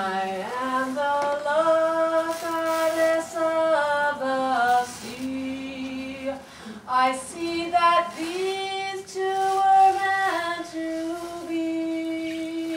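A woman singing a slow melody in long held notes, gliding between pitches, with a few short breaths between phrases.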